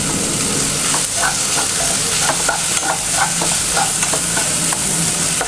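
Sliced onions, tomato, green chillies and curry leaves sizzling in hot oil in a pan, with a metal perforated spoon scraping the pan as the mixture is stirred; the scrapes come quickly, about three a second, from about a second in.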